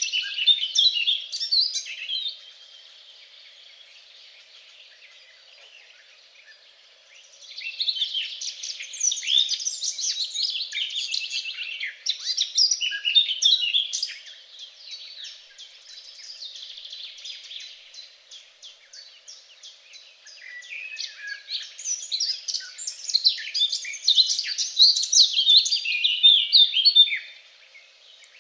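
Songbirds singing: long spells of quick, high chirping song, with quieter stretches of faint chirps between them.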